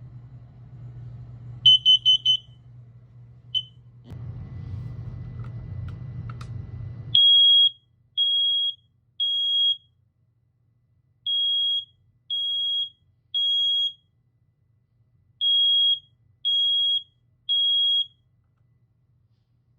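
Smoke alarm sounding: a quick burst of four short high beeps and a single beep, then its fire-alarm pattern of three long beeps with a pause, repeated three times, the temporal-three signal for smoke or fire.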